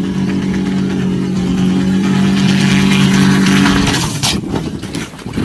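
Light single-seat helicopter's engine and rotor running with a steady drone that breaks off about four seconds in as it crashes, followed by a sharp impact and clattering.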